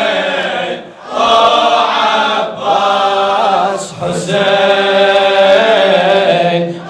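A lament refrain for Hussein and Abbas chanted in long, drawn-out sung phrases, with voices holding each note. There are about four phrases, each broken by a short breath.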